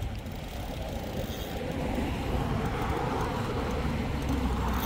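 Road traffic on the highway bridge: a steady rumble of tyres that swells about two seconds in and eases slightly near the end.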